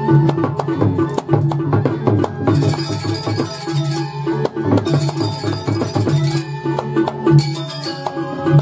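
Balinese gamelan accompanying a Jauk dance: kendang hand drums beating dense, rapid strokes over steady pitched tones from the ensemble.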